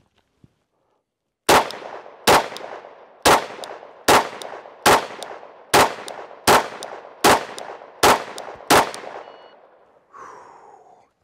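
Ten pistol shots from a 10mm Glock 40, fired at a steady pace about 0.8 s apart, each a sharp crack with a short echoing tail. A shot timer's par buzzer beeps faintly just after the tenth shot.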